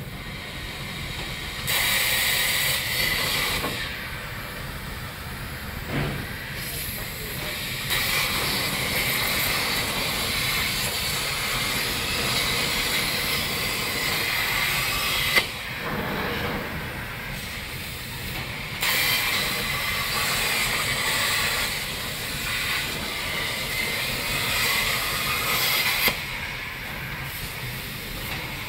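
CNC plasma cutter torch cutting metal sheet: a loud steady hiss of the arc and its air flow. The hiss swells and falls back in three long spells, with sharp clicks about six seconds in, near the middle and near the end.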